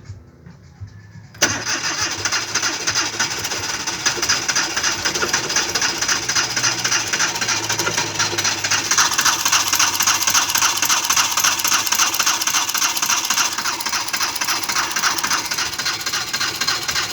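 Starter motor cranking a car engine steadily without it catching, beginning abruptly about a second and a half in. It is a crank-no-start in an engine that has overheated.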